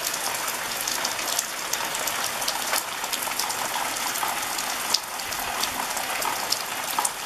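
Heavy rain falling steadily, a constant hiss of downpour scattered with many sharp, close drop hits.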